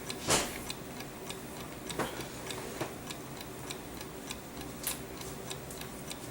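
Wall or shelf clock ticking steadily, a few even ticks a second, with one louder click just after the start.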